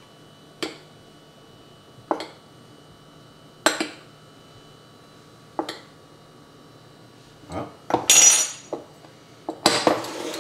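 A metal spoon clinking against glass as flour is spooned from a glass jar into a small glass bowl: four short separate clinks spaced about a second and a half apart, then two longer, louder scraping sounds near the end.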